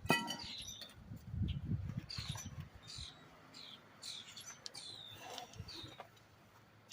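Drum-brake hardware being worked loose by hand: a sharp metallic clink that rings briefly at the start, then low knocks and handling noises. Short high chirps are scattered throughout.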